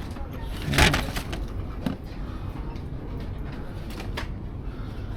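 Handling noise from serving pick-and-mix candy: a short rustle or clatter about a second in, then a few light clicks, over a steady low supermarket hum.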